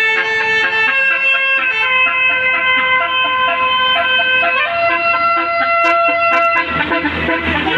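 Bus 'telolet basuri' musical air horn playing a tune of held, flute-like notes that step from one pitch to the next. A low rumble comes in near the end.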